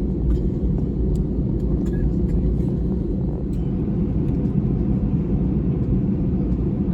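Cabin noise inside an Airbus A321 taxiing after landing: a steady low rumble from the idling jet engines and the airframe rolling over the taxiway, with a few faint clicks.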